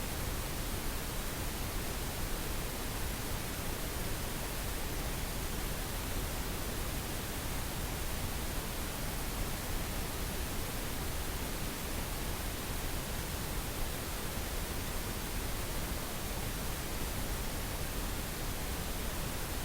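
Synthetic pink noise: a steady, even hiss with no breaks or changes in level.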